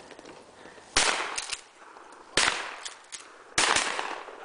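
Three shotgun shots, about a second and a half apart, each dying away quickly.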